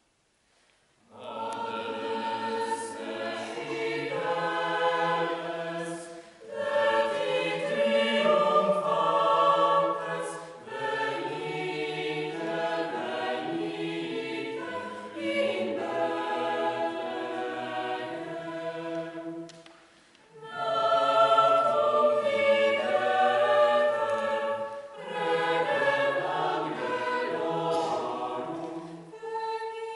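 Mixed choir of men's and women's voices singing a cappella. It enters about a second in after silence and sings in phrases with short breaks between them, the longest about two-thirds of the way through.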